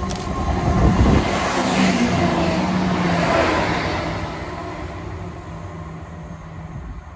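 ScotRail Class 170 Turbostar diesel multiple unit passing along the platform: engine and wheel-on-rail noise building to its loudest about one to three seconds in, then fading as the train moves away.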